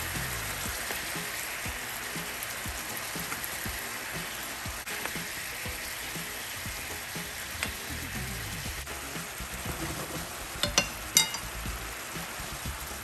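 Braising sauce sizzling and bubbling around salmon fillets in a frying pan, a steady hiss. Two sharp clicks about two seconds before the end.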